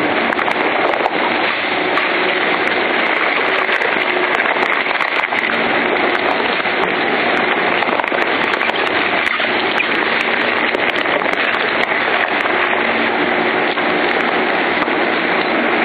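Lion Shredder EVO inverter-driven twin-shaft shredder crunching mixed waste and plastic bags: a loud, steady, dense crackling with a faint low hum beneath. The shredder is running at normal speed, having automatically sensed the load.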